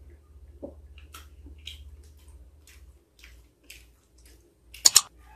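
Close-up eating sounds as a man chews a piece of cassava cake: soft wet mouth clicks and smacks every half second or so. Near the end come two sharp, loud clicks in quick succession.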